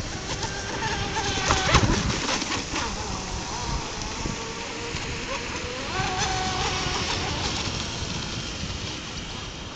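Water-cooled 2881kv brushless motor of an RC speedboat whining as it runs on the water, its pitch rising and falling with throttle, over the splash and hiss of the hull on the water. It is loudest about two seconds in, and its pitch rises again about six seconds in.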